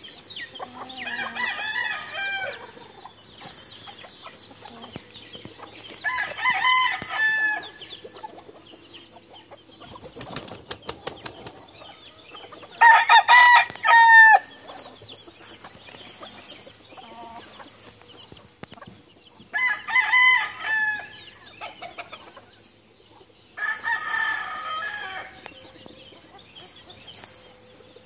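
Game fowl roosters crowing from their pens, five crows one after another several seconds apart, the loudest near the middle. About ten seconds in there is a short run of rapid claps.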